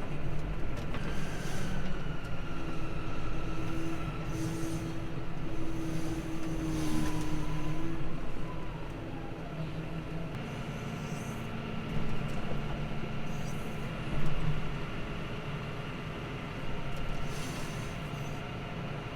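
Tractor engine running under load, heard from inside the cab, with a steady whine over the hum and occasional short squeaks and rattles from the trailer. About eight seconds in, the engine eases off and the sound drops.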